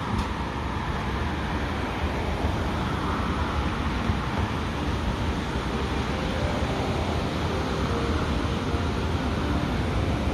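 Roadside ambience: cars passing on the road, with wind gusting on the microphone as a steady low rumble.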